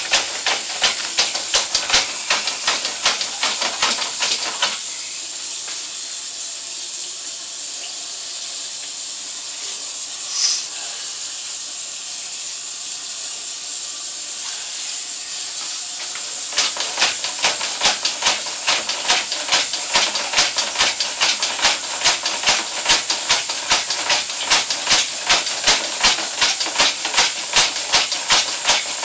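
Sewer inspection camera's push cable being fed down a 4-inch cast iron drain line: even clicking, about three a second, over a steady hiss. The clicking stops for about twelve seconds partway through, with one short squeak in the gap, then starts again.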